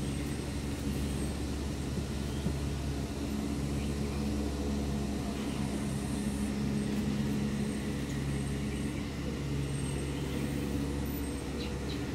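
A motor running steadily at constant speed, a low, even hum.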